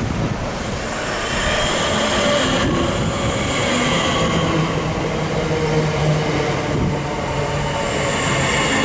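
Class 465 Networker electric multiple unit running along the platform: wheel-and-rail rumble with steady whining tones at several pitches, growing louder about a second in.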